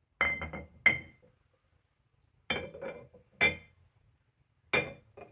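Cast iron weight plates clinking together as they are set down and stacked on one another, in three short clusters of clinks about two seconds apart, each with a brief metallic ring.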